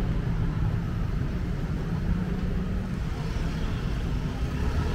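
Steady street traffic noise: a continuous low rumble of motor vehicle engines and traffic.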